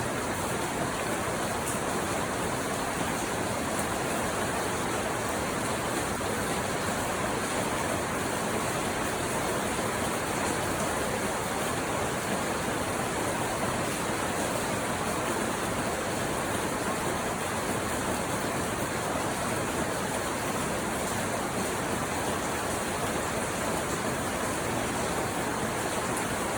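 Steady, even rain falling.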